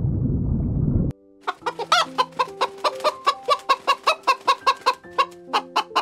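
A low rumble cuts off abruptly about a second in. Then a hen clucks in a quick, steady run of short calls, about four a second, over soft background music with held notes.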